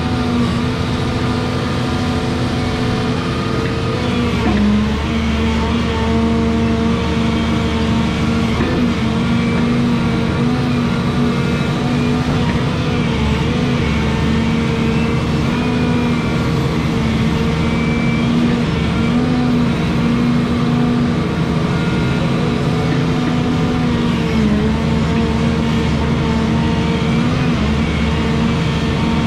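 Volvo 235EL excavator's diesel engine running steadily under working load. Its drone dips in pitch briefly a few times as the hydraulics move the levelling beam across the soil.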